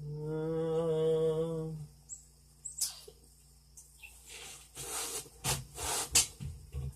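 A voice holding one low, steady note for about two seconds, then a single click and a few short rustling bursts.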